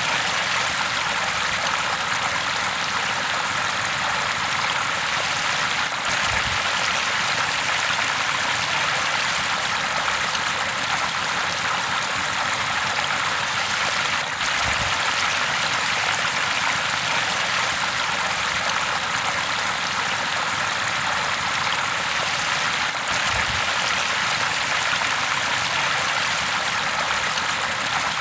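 River water rushing and babbling over rocks in a steady, unbroken stream.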